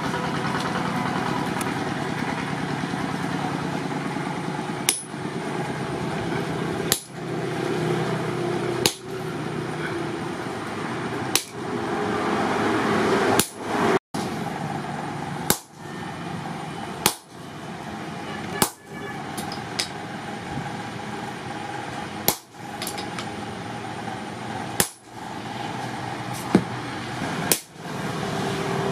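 Hammer blows on a punch being driven into a red-hot axe head on an anvil stake to open the axe eye, one sharp strike every two seconds or so starting about five seconds in. Under the strikes runs a steady machine hum.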